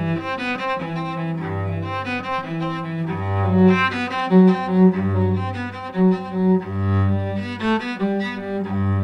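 Solo cello, bowed, playing a classical piece: a stream of quick broken-chord notes over a low note that keeps returning.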